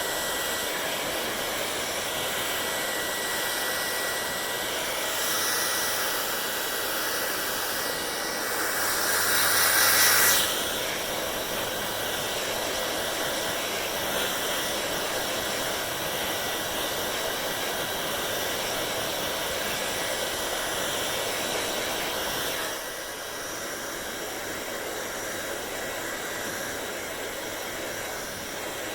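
Hair dryer running steadily: a rush of blown air with a thin high whine. The rush swells louder for about two seconds around ten seconds in, and the level drops slightly about three quarters of the way through.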